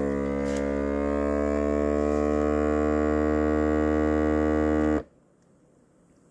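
Countertop vacuum sealer's pump motor running a steady hum as it draws air out of the bag, its pitch rising slightly, then cutting off suddenly about five seconds in.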